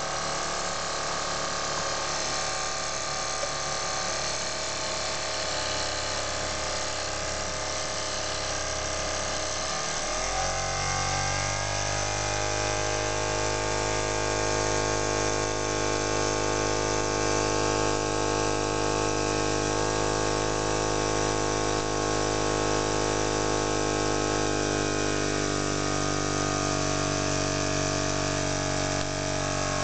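Small brass single-cylinder oscillating model steam engine running fast with a steady whirring hum. About ten seconds in its pitch glides up as it speeds up, then it holds steady at the higher speed.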